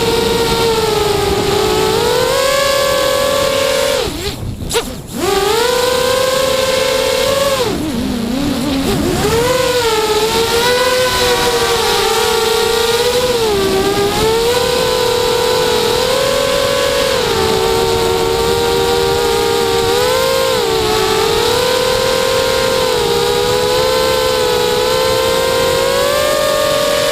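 FPV quadcopter's electric motors and propellers whining in flight, the pitch rising and falling with the throttle. About four seconds in the motors briefly cut back and the sound drops away; a few seconds later the pitch sinks low, then climbs back up.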